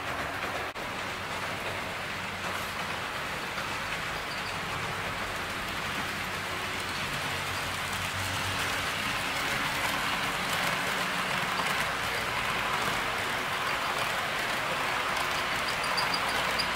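HO-scale model train, a TOMIX ED76 electric locomotive hauling passenger coaches, running along the track: a steady hiss of wheels rolling on the rails that grows louder from about halfway through as the train passes close by.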